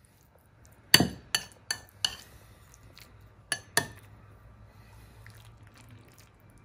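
Metal spoon clinking against a bowl while scooping food: four quick clinks starting about a second in, then two more a little before the four-second mark.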